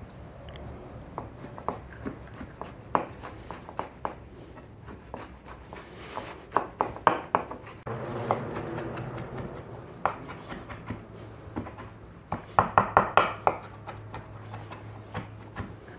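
Kitchen knife chopping a bunch of cilantro finely on a cutting board: scattered single chops, with quick runs of rapid chopping a little before halfway and again late on.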